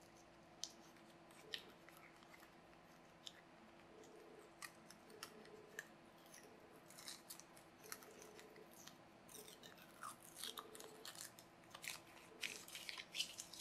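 Faint crinkling and crackling of a thin protective plastic film being picked at and peeled off a small metal plate by fingertips: scattered small clicks that come thicker in the second half.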